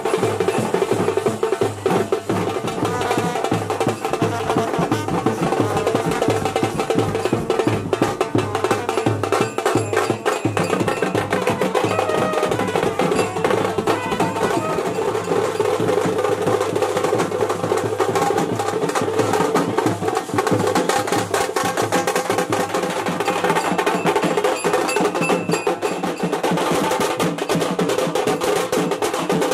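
Loud dance music at a wedding procession, driven by busy, rhythmic drumming.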